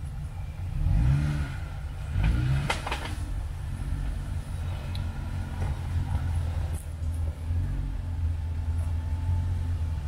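Jeep Gladiator's engine running at low revs as it crawls over boulders, with two brief revs about one and two seconds in. A few sharp knocks come around the three-second mark.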